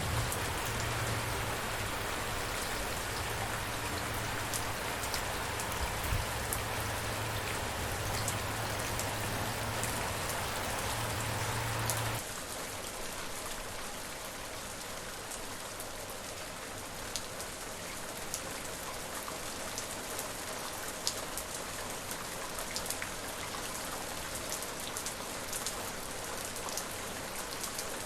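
Steady rain falling, with individual drops ticking sharply on a surface. About twelve seconds in, it cuts abruptly to a slightly quieter, thinner rain without the low rumble underneath.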